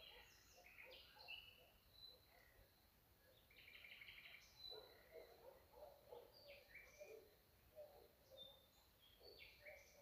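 Faint chirps and calls of several birds overlapping, with a quick run of repeated notes about four seconds in.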